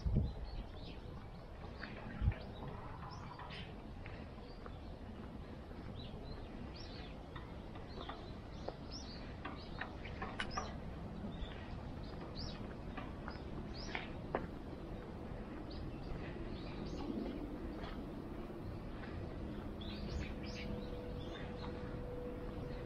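Small birds chirping repeatedly in short, high notes over a steady low background rumble of the street. A faint steady hum comes in near the end.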